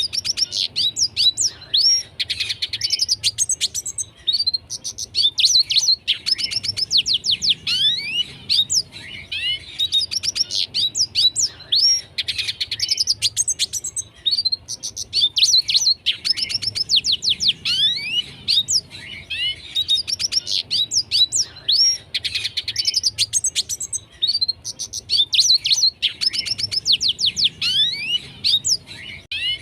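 Red siskin singing continuously: rapid twittering phrases of quick chirps and falling whistled notes, one after another with short breaks between.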